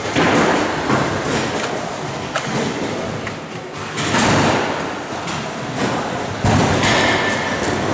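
Antweight combat robots fighting in an arena: several loud knocks and bangs as the small robots hit each other and the arena's wooden walls and floor, over constant hall noise.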